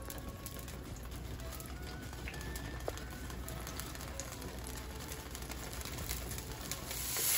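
Bacon grease crackling faintly in a smoking-hot cast-iron skillet as scallop skewers are laid in, with many small scattered pops over a low hiss; a louder, full sizzle comes in near the end.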